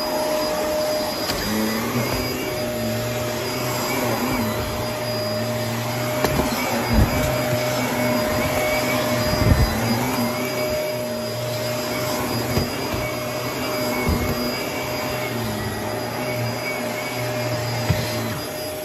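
Shark upright vacuum cleaner running over carpet: a steady motor whine, with a few short knocks as the head is moved about.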